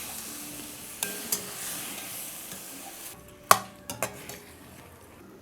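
Mushroom gravy sizzling in a pan as it is stirred, with a few sharp clinks of the spoon against the pan. The loudest clink comes about three and a half seconds in, and the sizzle thins after that.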